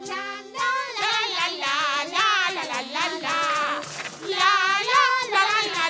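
High-pitched cartoon voices singing a cheerful song with instrumental backing, the notes wavering in pitch; the singing starts about half a second in.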